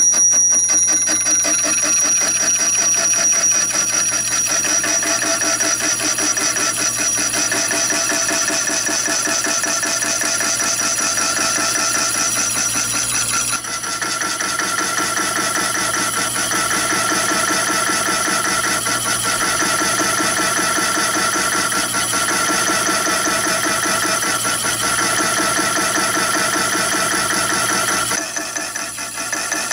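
HSS slitting saw in a mini lathe spindle turning at about 350 RPM, cutting a cross slot into a brass bar: a continuous ringing cut over the running lathe, with a steady high tone at the start. The sound shifts about halfway through and again near the end.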